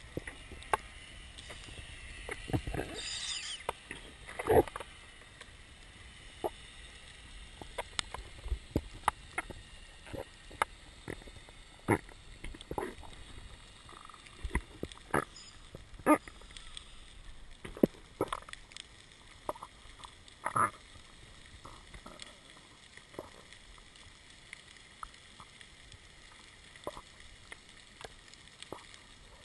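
Underwater sound picked up by a GoPro in its housing on a freedive: a low steady water rush with irregular sharp clicks and knocks, and a brief hissing rush about three seconds in. The clicks thin out near the end.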